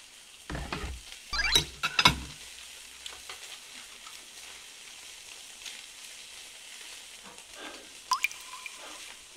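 Beef sizzling steadily in a frying pan on a portable gas burner. A man's drawn-out groaning exclamation comes in the first two seconds, and a short sharp squeak near the end.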